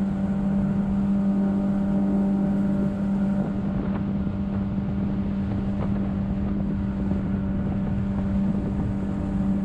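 Jet boat's engine running under way at a steady speed, a constant hum over the rush of water and wind.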